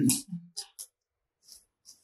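A few brief, faint rustles and ticks from hair and a curling wand being handled close to the microphone, after the end of a spoken word.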